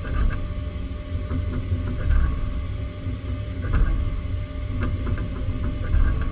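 CNC machining centre milling a miniature engine block: a steady machine hum and low rumble with irregular light ticking from the cut.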